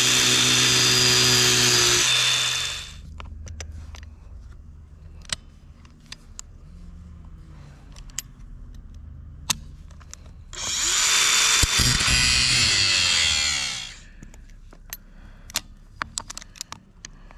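Angle grinder grinding a stripped screw head flat on a rubber track grouser so that vice grips can get a hold on it. It runs in two bursts of about three seconds each, one at the start and one about ten seconds in. In between are scattered light metal clicks and taps.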